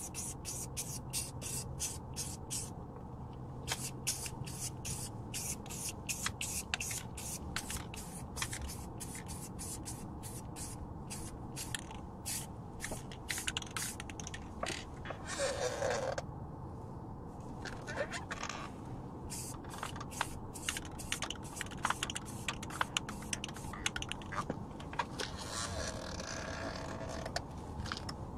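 Aerosol spray can being shaken, its mixing ball rattling in quick, even clicks several times a second. Two short hisses of spray come around the middle and near the end.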